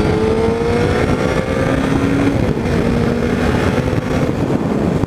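Motorcycle engine running under load while riding, its pitch rising slowly and then settling lower about two seconds in, over a steady rush of wind on the microphone.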